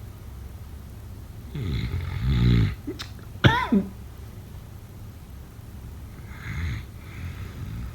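Snoring in sleep: a drawn-out snore about two seconds in, then a sudden sharp sound with a quickly falling squeaky pitch, and a fainter snore near the end.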